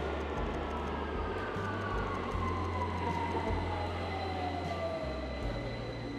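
Underground train pulling into the station: a steady rumble of wheels on the rails under a single whine that falls slowly in pitch as the train slows.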